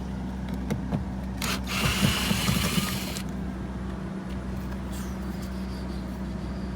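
Clicks and knocks of a car door trim panel being worked apart, with a loud hiss of noise lasting about a second and a half, starting about one and a half seconds in, over a steady low hum.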